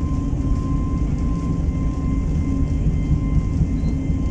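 Jet airliner's engines and landing-gear rumble heard inside the cabin during the take-off run: a loud, steady deep rumble with a steady thin whine over it.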